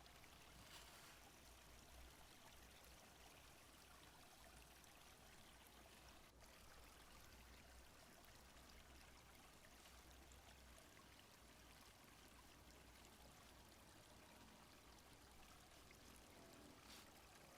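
Faint, steady sound of a small stream flowing: an even rush of running water.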